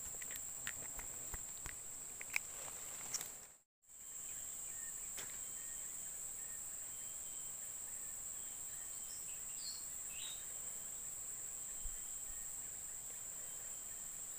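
Steady high-pitched drone of an insect chorus. A few light clicks and rustles come in the first three seconds. The sound cuts out briefly about four seconds in, and a few short high chirps come near ten seconds.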